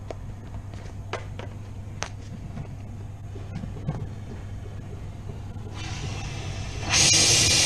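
Oxy-fuel gas torch burning a soft yellow fuel-only flame over a steady hum from the booth's fume extraction, with a few light clicks. Near the end the oxygen is opened and the flame turns into a loud, steady hiss.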